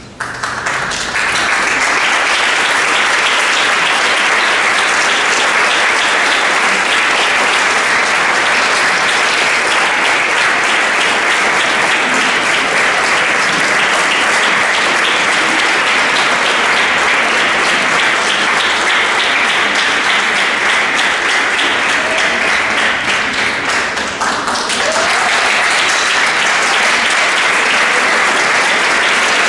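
Audience applauding, starting about a second in and holding steady, with a brief lull near the end before it picks up again.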